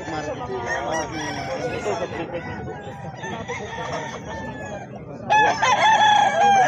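Several roosters crowing and clucking, overlapping. About five seconds in, one loud, long crow begins and is still going at the end.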